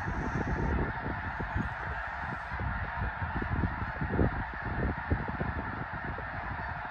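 A huge flock of snow geese calling overhead: a continuous, dense chorus of honking from many birds at once, with wind buffeting the microphone.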